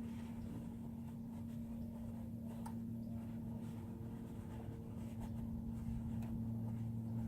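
Used engine oil pouring out of the drain hole into a drain pan, with a steady low hum under it. A second, lower hum grows stronger about five seconds in.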